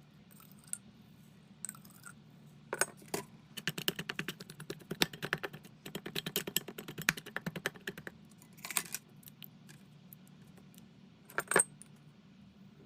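A metal utensil clinking and scraping against a metal cooking pot: a dense run of rapid clicks lasting about five seconds, then a few single clinks, the last and loudest near the end.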